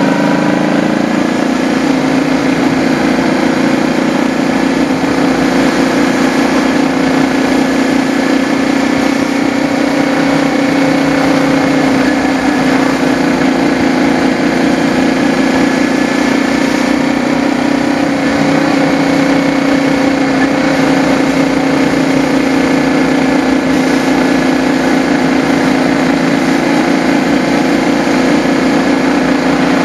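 Motorcycle engine running under way at a steady cruising speed, its note rising briefly near the start and then holding steady, with wind and road noise.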